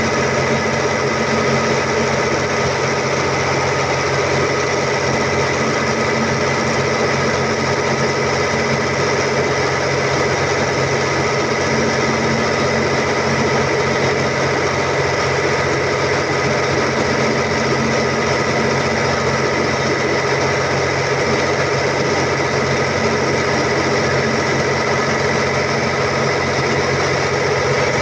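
Volvo Penta TAD1341GE inline six-cylinder turbocharged diesel genset engine running steadily after a new top overhaul.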